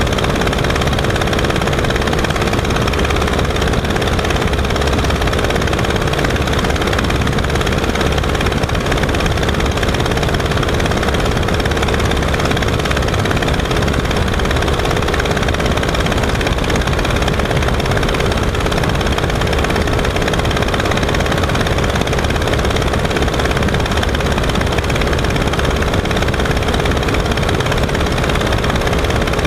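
Verner 3V three-cylinder radial engine and propeller of a Legal Eagle XL ultralight running steadily at cruise power in flight, with wind rushing past the open airframe.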